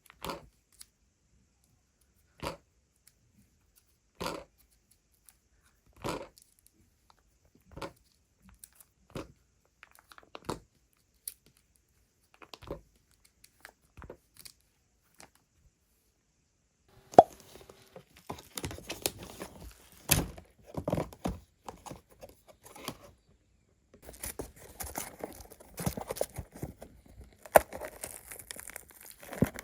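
Parcel packaging being handled and opened: a series of short separate clicks about every second or two, then, after a brief pause, packaging tearing and crinkling.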